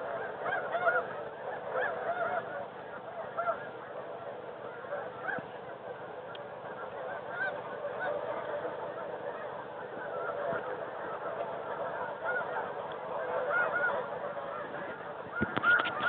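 A large flock of snow geese calling at once: many short, high honks overlapping in a constant chatter, growing louder near the end.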